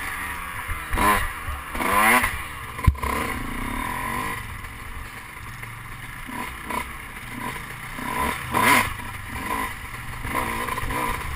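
Dirt bike engine revving up and easing off in short bursts, about a second and two seconds in and again near the end. There is a single sharp knock just under three seconds in.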